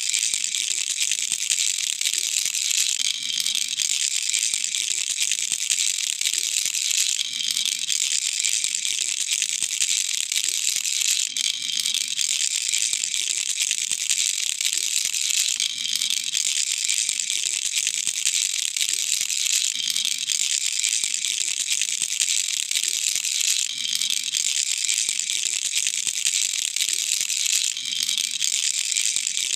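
Baby rattle (khulkhula) shaken without pause, a dense high rattling of small loose pieces inside the toy, with a pattern that repeats about every four seconds.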